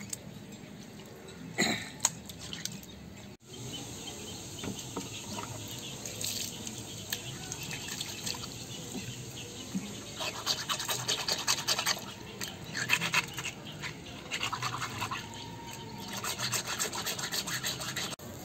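Wet raw fish pieces scrubbed by hand with salt on a rough concrete slab to clean them: a scratchy rasping scrub that comes in several bouts, with water trickling and splashing.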